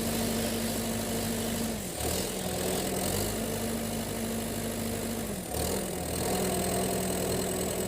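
Diesel engine of a Komatsu PC138 excavator running steadily. Its speed sags noticeably about two seconds in and dips again briefly about five and a half seconds in.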